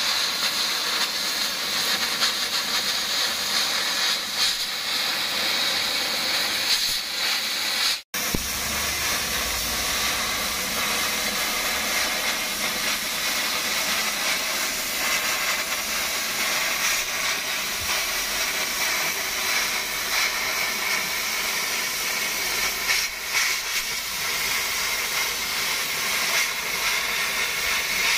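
Oxy-fuel cutting torch hissing steadily as it cuts through a corrugated steel shipping-container panel. It breaks off for an instant about eight seconds in.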